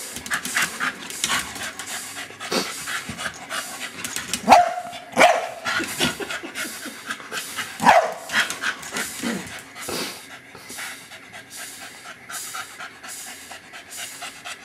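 Staffordshire bull terrier panting rapidly while it plays at a beetle, with a few short, louder sounds from the dog about four to five seconds in and again near eight seconds.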